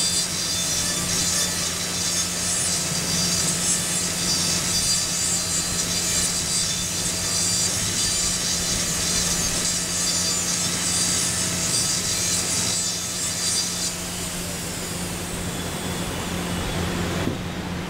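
High-speed air-turbine dental handpiece running a straight fissure bur against an artificial typodont molar: a high steady whine with a grinding rasp of cutting, over a low steady hum. About 14 s in the cutting stops and the whine winds down.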